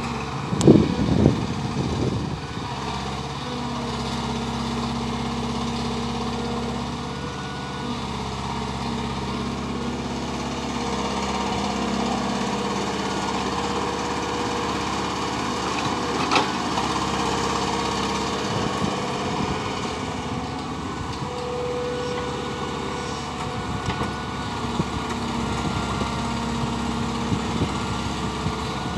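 ATLAS excavator's diesel engine running steadily while digging, its note shifting a little as the load changes, with a few sharp knocks in the first two seconds and another about 16 seconds in.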